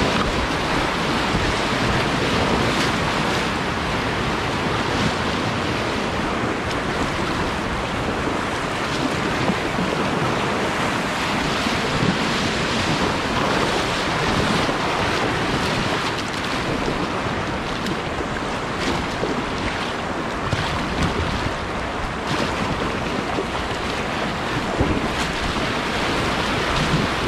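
Whitewater rapids on a river running high, a steady rush of fast-moving water.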